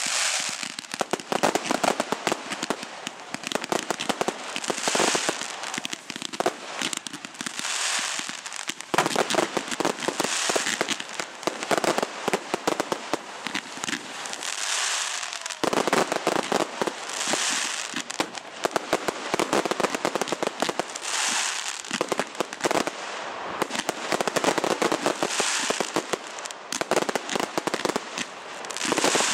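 Display fireworks crackling densely and without pause, like strings of firecrackers, with a loud hissing swell every two to four seconds.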